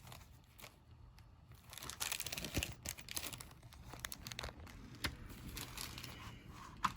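Faint crinkling and light clicks of small lock parts being handled, as tumbler wafers are picked from a rekeying kit and fitted into a car door lock cylinder, with a louder stretch of rustling about two to three seconds in.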